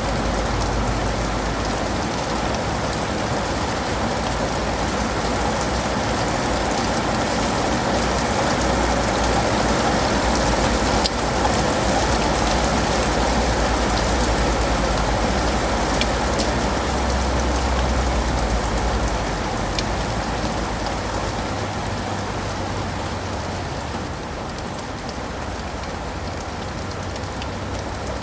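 Steady rain falling on leaves and pavement: a continuous hiss with scattered sharp drip clicks and a low rumble underneath. It eases slightly after about twenty seconds.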